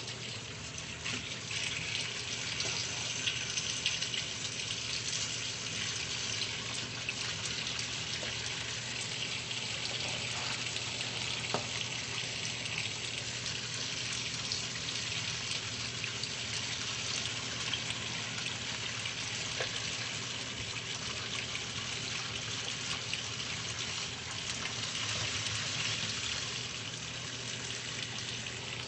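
Water running and detergent suds fizzing in a top-load washing machine tub, a steady hiss over a low hum.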